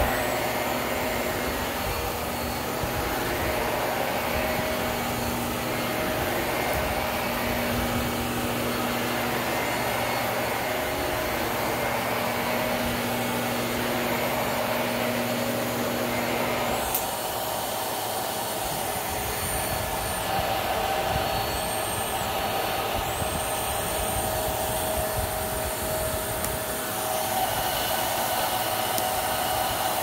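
Hart Pro bagless upright vacuum running on carpet: a steady motor and airflow noise with a low hum. About halfway through there is a click and the low hum drops away, leaving the motor running with a thin high whine.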